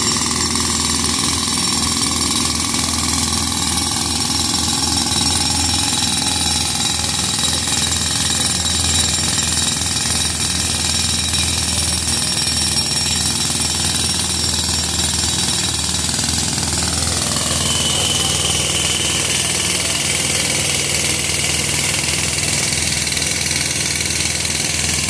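Jackhammer breaking up pavement, running without a break over a steady machine hum. About two thirds of the way through, a pitch slides down and a high whine comes in.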